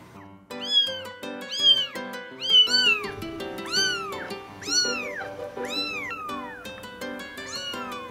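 A kitten a few weeks old mewing repeatedly, about eight high calls that rise and fall in pitch, loudest in the first few seconds.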